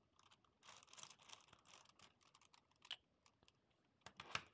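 Faint clicking and scratching of a Gigaminx's plastic layers being twisted by hand, in irregular runs of quick clicks with a louder cluster near the end.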